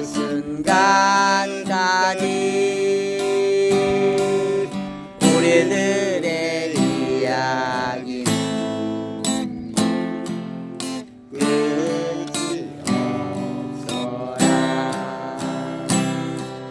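Acoustic guitar strummed, with a wavering melody line over the chords.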